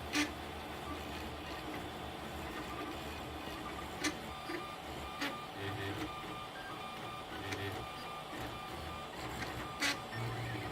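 FDM 3D printer running an ABS print: its stepper motors whir in short moves that keep changing pitch as the print head travels. A handful of sharp ticks are scattered through.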